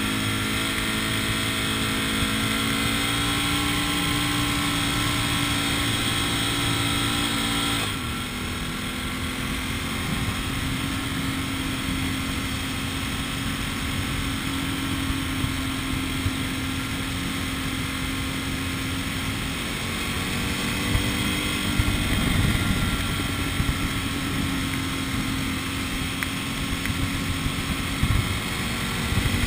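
A vehicle's engine and road noise while driving. The engine note eases lower and drops in level about eight seconds in, holds steady, then climbs in pitch again from about twenty seconds in.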